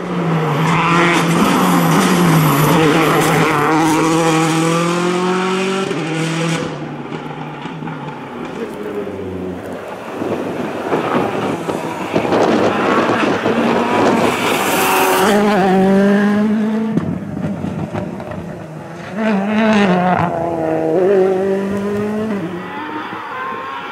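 Rally cars driven hard past the spectators, one after another: engines revving up and dropping back through gear changes and lifts. There is a loud rush of noise about halfway through.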